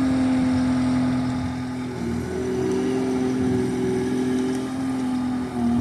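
Bobcat T64 skid steer's diesel engine running steadily, with a steady whine over the engine that dips briefly in pitch about two seconds in and again near the end.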